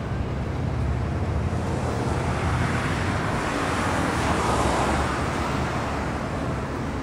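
City traffic noise: a steady low rumble with a vehicle passing, its whoosh swelling a few seconds in and then fading away.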